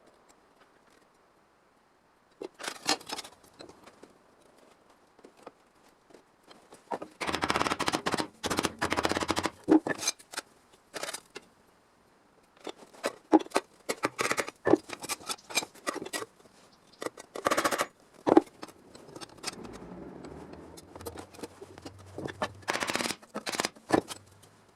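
Hand snips cutting sheet metal in irregular runs of short, sharp snips and clicks, with pauses between cuts.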